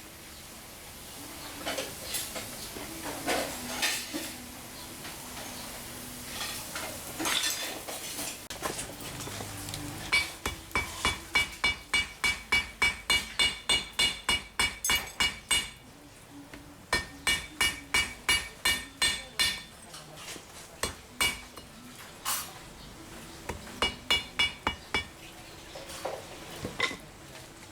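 Hand hammer striking hot steel on an anvil, with each blow ringing. The blows come in runs of about three a second with short pauses between them, after some loose metallic clinks at the start.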